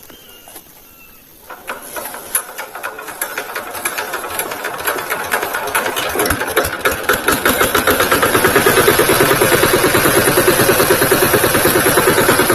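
A VST Shakti tractor's diesel engine comes in suddenly about a second and a half in, with a rapid even pulse. It grows steadily louder over several seconds, then runs at a steady level.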